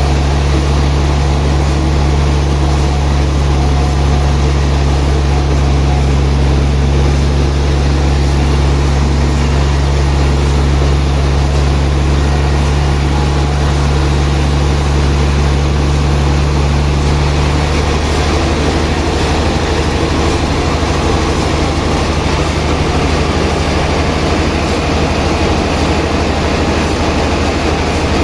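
Sawmill machinery running: a loud, steady low mechanical drone with a constant hum, one of its upper hum tones dropping away about two-thirds of the way through.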